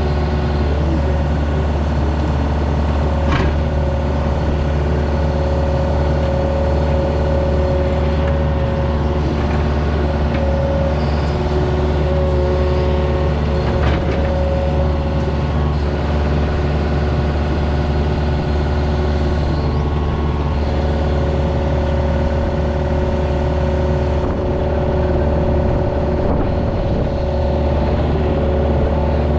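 An engine running steadily at a constant speed, with a couple of sharp knocks, one about three seconds in and one near the middle.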